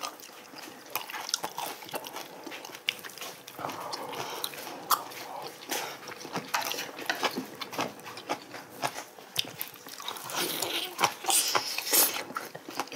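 Eating sounds of braised oxtail being chewed and bitten off the bone: wet mouth smacks and small crunches with scattered sharp clicks, busiest near the end.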